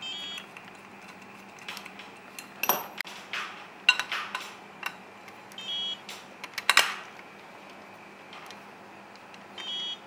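Small metal parts clicking, clinking and knocking as pins and the quick coupler are fitted to a 1/16-scale RC excavator's bucket and arm with a screwdriver. Three short buzzy tones come at the start, about halfway and near the end.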